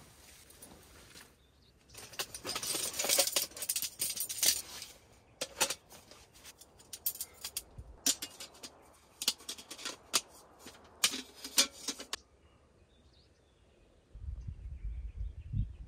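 Camp gear being handled inside a tent: rustling, then a run of sharp clicks and knocks as a small folding table's metal frame is unfolded and set up. Near the end a low rumble comes in.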